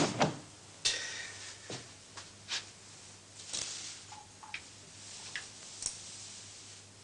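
Scattered light clicks and knocks of small objects being handled, over a faint steady hum.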